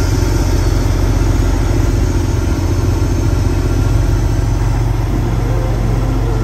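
Kenworth W900L semi-tractor's heavy diesel engine running steadily at a low, even pitch.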